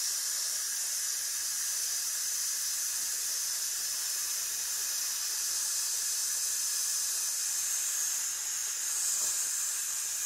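A man breathing out in one long, steady hiss through the teeth, a slow controlled exhale held as long as possible as a breath-support exercise.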